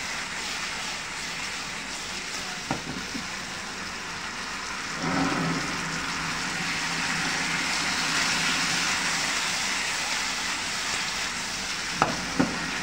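Chicken pieces sizzling in a thickened lemon sauce in a nonstick frying pan over a gas flame while being stirred with a spatula. A couple of sharp knocks near the end as the pan is tossed.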